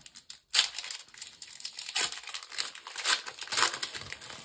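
Foil wrapper of a Pokémon TCG Brilliant Stars booster pack being crinkled and torn open, in a run of uneven crackling rustles starting about half a second in.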